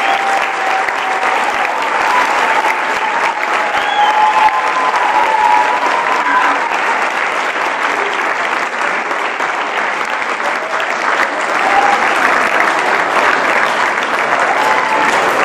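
Audience applauding steadily, a dense continuous clapping with a few voices calling out over it.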